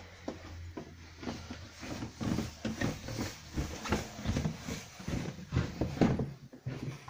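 Footsteps going down a carpeted staircase: a quick, uneven run of soft thumps.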